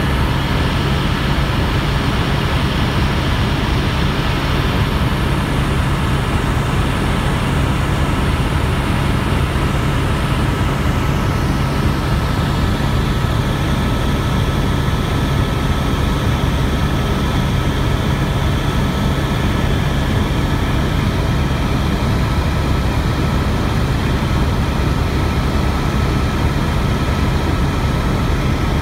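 Helicopter in flight, heard from inside the cabin: a loud, steady low drone from rotors and engine with thin, steady high whining tones over it.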